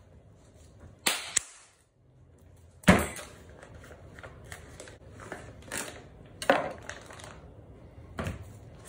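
A handful of sharp knocks and clatters, the loudest about three seconds in, as objects are set down and handled.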